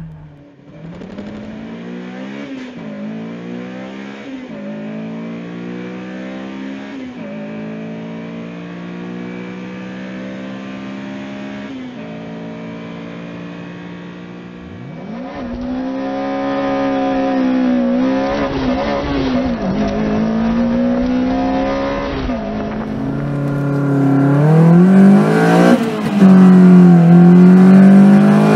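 Lotus Elise/Exige four-cylinder engine heard from inside the cabin, accelerating hard through the gears: the engine note climbs and drops back at each upshift, about every two seconds at first. It gets louder in the second half, with quick rises and falls in revs.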